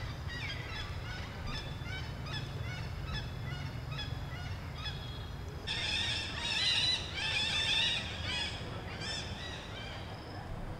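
Many short, high-pitched animal squeals rising and falling in quick succession, several a second, densest and loudest from about six to eight seconds in, over a low steady rumble.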